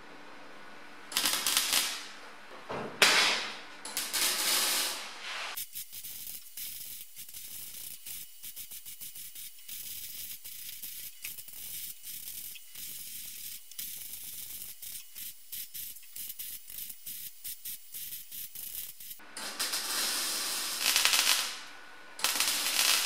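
MIG welder laying short welds on a steel patch panel, a crackling hiss in runs broken by brief pauses. The louder bursts of hiss come about a second in and again near the end.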